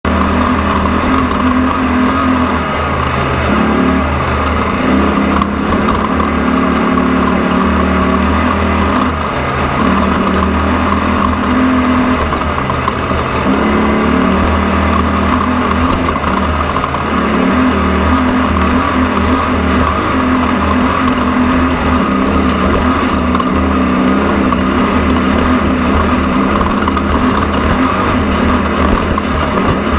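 An engine running steadily and loudly, its pitch stepping up and down every few seconds.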